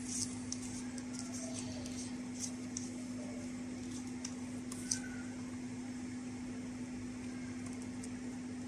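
A steady low electrical hum, with a few faint scattered ticks and taps, the clearest near the start and about five seconds in.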